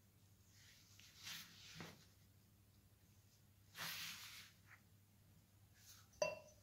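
Wire whisk stirring dry washing powder in a plastic bowl: faint scratchy swishes, about a second in and again about four seconds in. A sharp clink near the end as the whisk is knocked against a glass.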